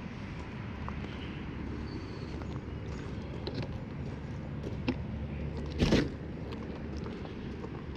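Steady outdoor background noise with a few faint clicks and one louder sharp knock about six seconds in.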